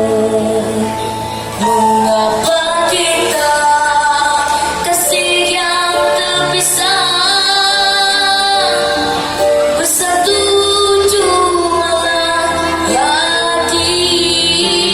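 Music: a slow Malay pop ballad with a high singing voice on long, wavering held notes over an accompaniment.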